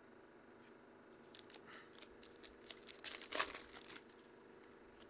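Foil wrapper of a trading-card pack being torn open and crinkled: faint, irregular crackling from about a second in to about four seconds in, loudest near the middle.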